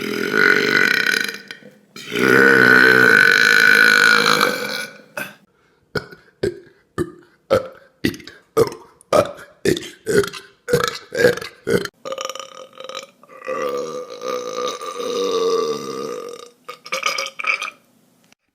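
People belching on command. A long, loud belch about two seconds in is followed by a quick run of about a dozen short burps, roughly two a second, then longer drawn-out belches near the end.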